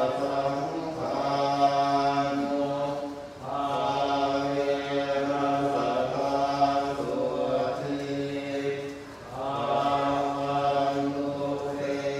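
Buddhist monks chanting in Pali in unison, male voices held on a nearly level pitch, with short breaks for breath about three seconds in and again about nine seconds in.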